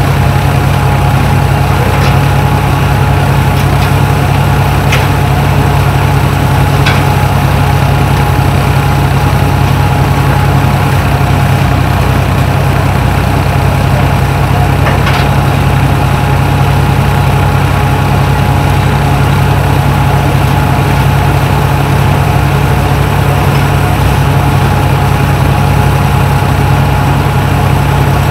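Tractor-driven threshing machine running at a steady speed through a long flat drive belt: a constant low engine drone with a steady higher hum, and a few sharp clicks now and then.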